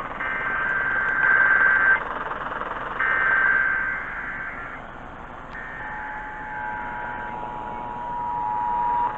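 Emergency Alert System tones received over radio: three bursts of the coded SAME header, a buzzing digital data screech, each about a second and a half long with short pauses between. Then the steady two-tone attention signal (853 and 960 Hz) begins about six seconds in, over a hiss of radio static.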